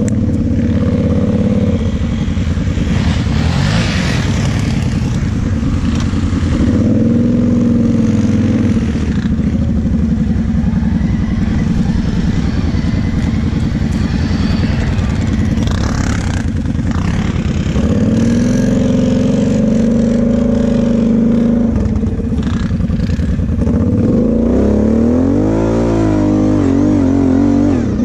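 Quad bike (ATV) engine running under the rider, its pitch rising and falling as the throttle is worked over rough off-road ground, with quick up-and-down revs in the last few seconds.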